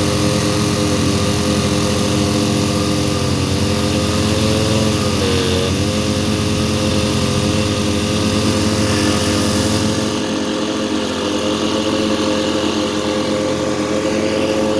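Outboard motor running steadily under way, its pitch dipping briefly about five seconds in, over a steady hiss.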